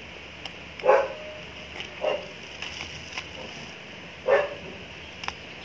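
Dog barking: three short barks, about a second in, two seconds in, and again a little past four seconds.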